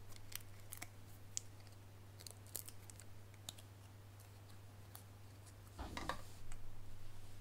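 Faint clicks and ticks of small paper pieces and foam adhesive dimensionals being handled and peeled, with a louder brief rustle and tap about six seconds in as the paper sentiment strip is handled over the card.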